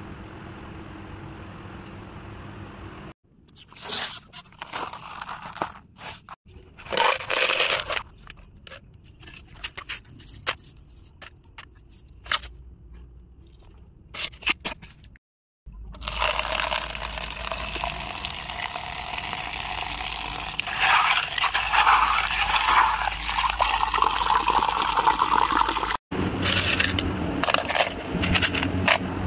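Small gravel stones scraping and crunching as they are handled in a plastic tub and poured into a plastic bottle. There are short, scattered scrapes at first, then a louder stretch of continuous rattling and rustling from about the middle on.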